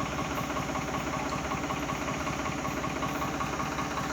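A vehicle engine idling steadily, with an even, rapid low pulsing.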